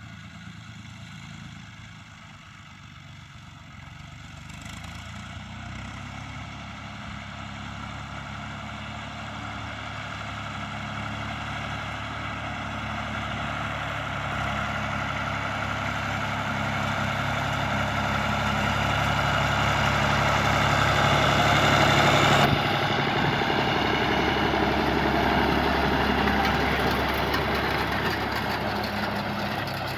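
Massey Ferguson 135 tractor engine running steadily as the tractor draws nearer, growing gradually louder for about twenty seconds, then changing abruptly in tone about three-quarters of the way through while it runs close by.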